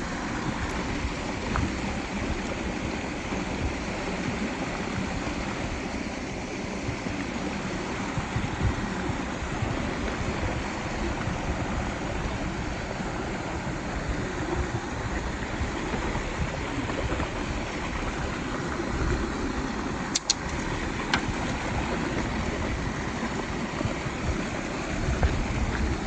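Shallow mountain stream rushing and splashing over boulders in small cascades: a steady noise of running water.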